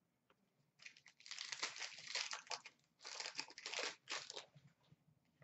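Trading cards and their packaging being handled: rustling and crinkling in three short spells.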